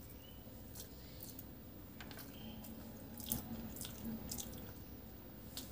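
Close-up eating sounds: wet chewing and squishing of rice and curry eaten by hand, as scattered soft wet clicks, the loudest about three seconds in.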